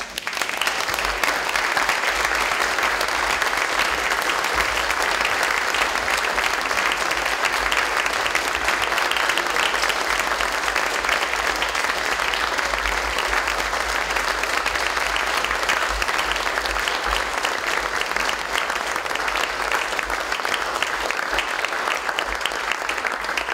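Audience applauding: dense, steady clapping from a large seated crowd that starts abruptly and keeps up at an even level throughout.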